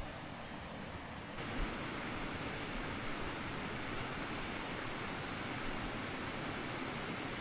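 Steady rush of river water flowing over rocks, turning louder and fuller about a second and a half in.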